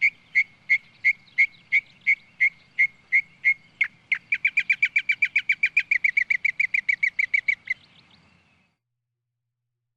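A songbird calling: short, sharp whistled notes repeated about three times a second, then breaking into a faster run of about eight notes a second that stops abruptly a little before eight seconds in. Silence follows.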